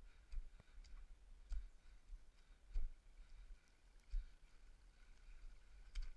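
A trail runner's footfalls climbing over rock and mud, picked up through a body-worn action camera as irregular low thumps with a few sharp clicks.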